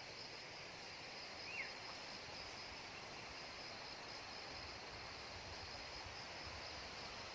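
Outdoor ambience of steady high-pitched insect trilling over a soft hiss, with a single short chirp falling in pitch about a second and a half in.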